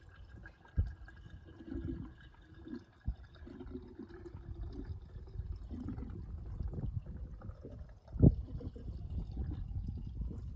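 Premixed two-stroke fuel being poured slowly into a chainsaw's fuel tank, with liquid trickling and filling. A few knocks from handling the saw and container, the loudest a sharp thump about eight seconds in.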